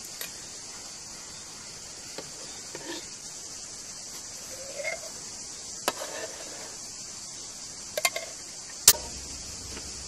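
A metal ladle clinking against glass jars and the pot while jam is ladled into the jars: a few sharp clinks in the second half, the loudest near the end. A steady high insect hiss runs underneath.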